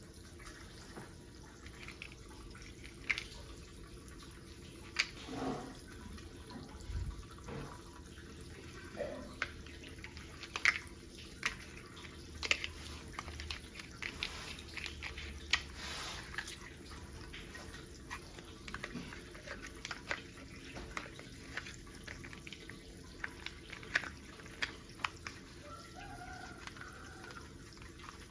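Plastic toy pieces being handled and fitted together: irregular light clicks and taps, a few of them sharper.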